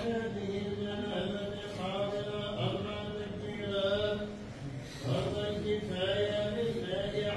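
Men's voices chanting a slow funeral chant in long held notes, with a short break about five seconds in.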